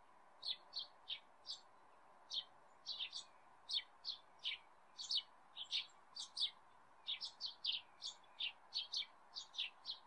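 Eurasian tree sparrow calling: a run of short, high chirps, about three a second, irregularly spaced and sometimes in quick pairs.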